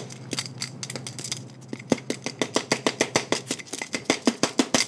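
Handheld noisemaker shaken, clacking in quick sharp clicks: faint and scattered at first, then louder and regular at about five or six clacks a second from about two seconds in.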